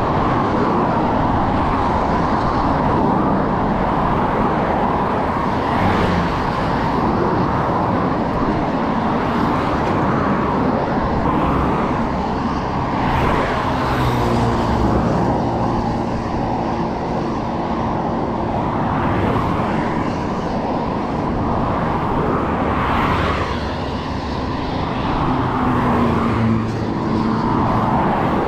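Steady rush of highway traffic, cars and vans passing close by in the next lane, heard from a bicycle on the road shoulder with wind noise on the microphone.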